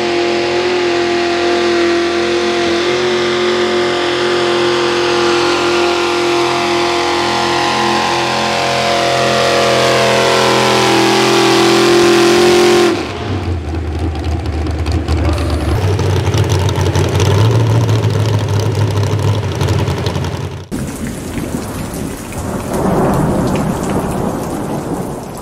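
Small-block V8 of a 4x4 pulling truck (410 cubic inch limit) running flat out at steady high revs, as in a sled pull. It cuts off abruptly about thirteen seconds in, leaving a low, noisy rumble with no clear pitch.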